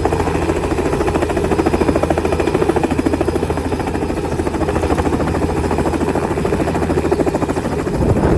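Helicopter running, its rotor beating in a rapid, even chop over a steady low engine drone.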